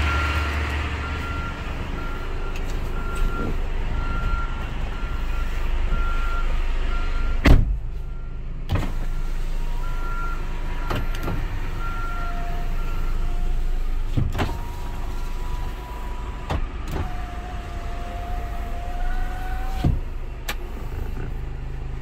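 Small electric door motors of a Hyundai Porter II cab whining in several short runs of one to three seconds, each starting and stopping with a click, under a low steady hum. A beep repeats evenly until about halfway through, and a sharp knock about a third of the way in is the loudest sound.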